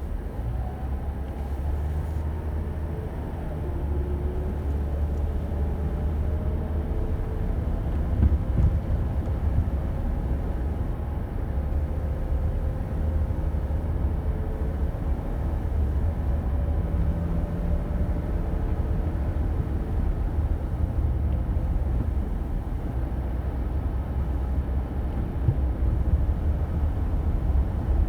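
Car driving along a forest road, heard from on board: a steady low rumble of engine and tyres, the engine note drifting up and down, with a few bumps from the road.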